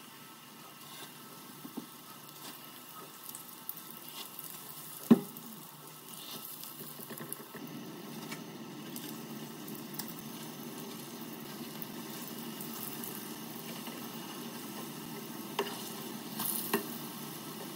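Starch-coated potato zrazy frying in vegetable oil in a stainless steel pan, sizzling steadily and growing louder after about six seconds. A single sharp knock about five seconds in, and a few lighter knocks near the end as the patties are turned with a spatula.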